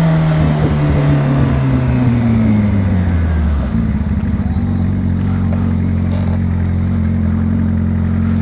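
Yamaha R6 inline-four sportbike engine through a Two Brothers aftermarket exhaust. It winds down as the bike slows, the pitch falling for the first three and a half seconds or so, then holds a steady, lower note.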